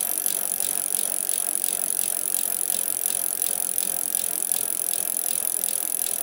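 Steady mechanical rattling with a fast, even ticking, as from something moving along.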